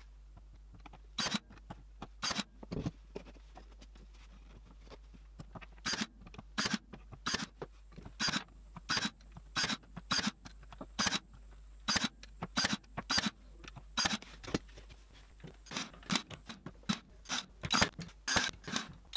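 Ryobi AirStrike cordless nailer firing nails into pine slats, one sharp snap per shot. Dozens of shots come about one or two a second, with a pause of a few seconds near the start.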